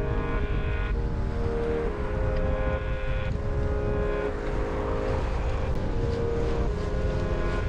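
Strong wind rumbling and buffeting on the microphone of a bicycle riding into a headwind, a steady low roar.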